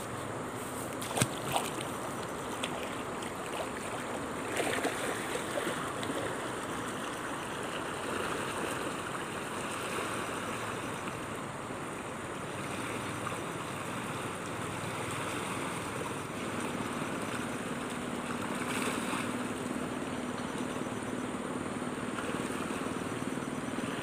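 Fast-flowing, flood-swollen river rushing steadily, with wind buffeting the microphone. Two sharp splashes just over a second in as a person steps into the water.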